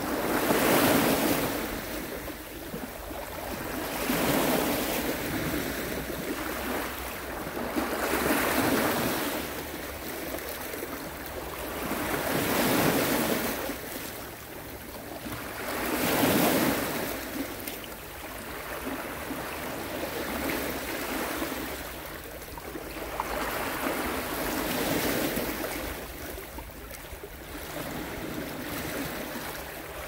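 Ocean waves breaking and washing in, rising and falling about every four seconds; the swells are softer in the second half.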